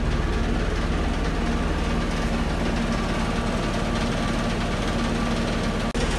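Steady low machine hum with a few held low tones, like a motor running. It cuts out briefly near the end.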